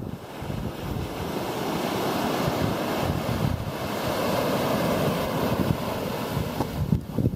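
Small sea waves breaking and washing up a sandy beach, a hissing wash that swells over the first few seconds. Wind buffets the microphone with low rumbling gusts.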